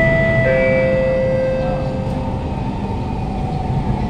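Siemens C651 train's GTO-VVVF inverter and traction motors whining inside the carriage, with several steady tones that switch in and out over the rumble of the wheels on the rails.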